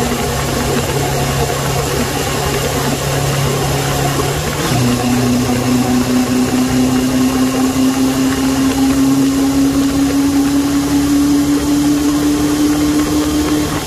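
Suzuki Bandit 600's inline-four engine running under way, with wind hiss. About five seconds in, the engine note drops suddenly, then climbs slowly and steadily as the bike pulls, until it breaks off near the end.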